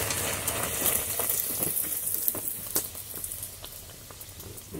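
Hing kochuri deep-frying in hot oil in a karahi, the oil sizzling and crackling around the puffing dough; the sizzle eases off after about three seconds.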